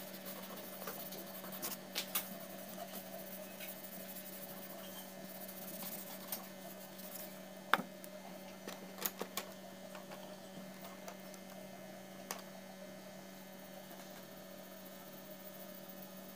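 A few sharp clicks and light taps from a drawing sheet and pencil being handled on a wooden desk: a couple about two seconds in, a louder one near the middle, and a few more soon after. A steady hum runs underneath.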